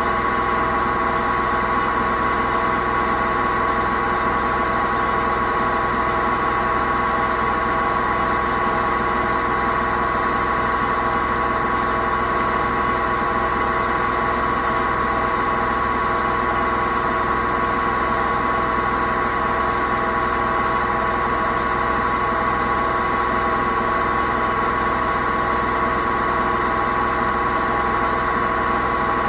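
Hoover VHD 9163 ZI washing machine drum spinning at a steady speed, a loud drone with a high whine riding on it. The loudness comes from the machine's broken drum bearings.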